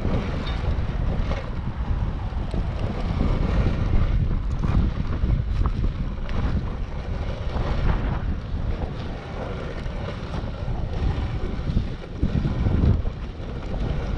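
Wind buffeting the microphone in gusts, over the wash of surf breaking on the beach.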